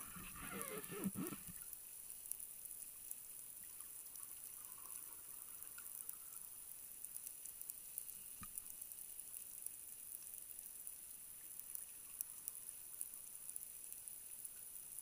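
Faint underwater ambience from a diving camera: a short gurgle of bubbles in the first second or so, then a steady hiss with scattered faint clicks.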